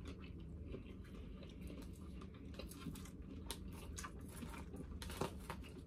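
Faint chewing of a mouthful of salad with shrimp and rice, with scattered light clicks as a plastic fork picks at the food in the bowl.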